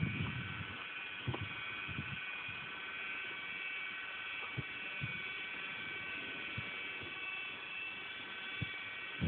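Cement mixer running: a steady buzzing motor hum with a few scattered low knocks and a louder thump at the very end.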